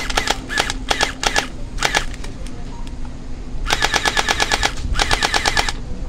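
Electric Glock-style gel blaster firing on full auto: rapid mechanical clacking at about a dozen shots a second. It comes in several short bursts, then two longer bursts of about a second each near the end.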